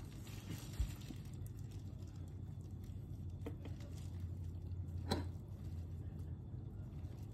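A cinnamon shaker shaken over toast, giving a few faint taps over a low steady hum.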